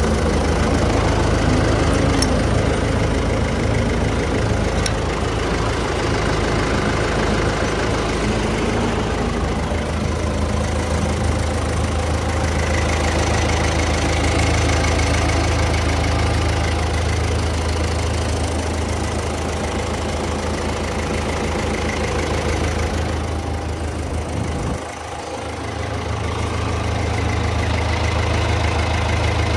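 Diesel engine of a Morbark Tornado 15 wood chipper running steadily at idle, briefly quieter about 25 seconds in.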